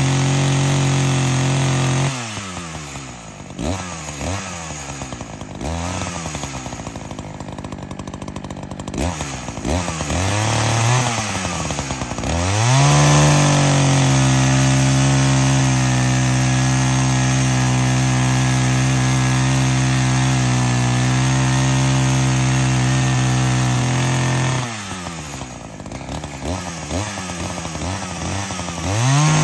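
Echo CS-590 two-stroke chainsaw, brand new and being broken in, cutting log rounds. It runs at steady high revs, then the revs fall and surge up and down for several seconds before climbing back and holding high again. Near the end the revs drop and waver once more, then pick up again.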